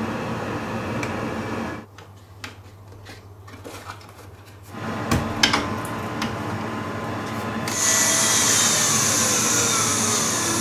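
Workshop handling sounds as parts are fitted into a wooden sanding jig and a cordless drill is attached to it: a steady hum at first, then clicks and knocks, and from about eight seconds in a loud high whine.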